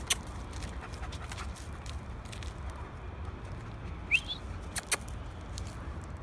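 A dog gives one short, high squeak of a whine that rises in pitch about four seconds in, over a steady low rumble, with a few light clicks.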